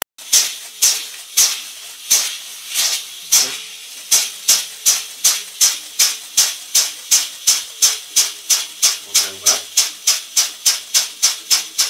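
Homemade steam engine running, each exhaust a short hissing chuff of steam. The chuffs come slowly and unevenly at first, then pick up speed about four seconds in to a steady rhythm of roughly three a second.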